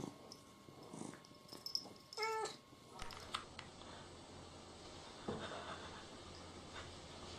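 A domestic cat meows once, a short call about two seconds in. Faint rustling and a soft knock follow.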